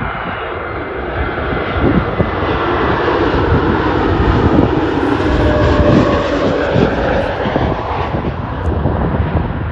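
Airbus A320neo's Pratt & Whitney geared turbofan engines on final approach, a jet rush and whine that grows louder as the airliner passes low overhead, peaking about five to six seconds in, then easing off.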